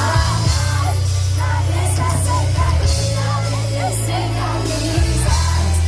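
Live concert music played loud through a PA: a deep bass line holding long notes, with a sung female lead vocal over it and cymbal hiss.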